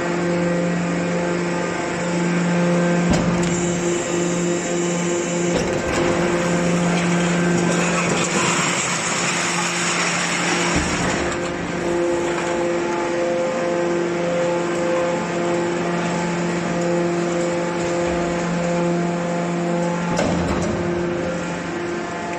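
Hydraulic can shearing baler running, with the steady hum of its hydraulic pump throughout. A louder rushing, grinding noise comes in the middle, and there are a few sharp knocks of metal.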